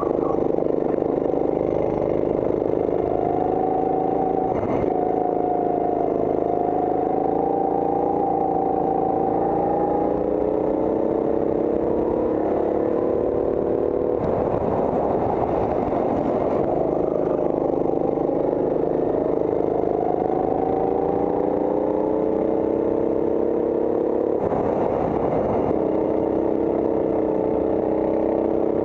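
Go-kart engine heard from on board, running hard with its pitch climbing slowly as the kart gains speed. The pitch falls back twice, about halfway through and again near the end, then climbs again as the kart accelerates out of the corners.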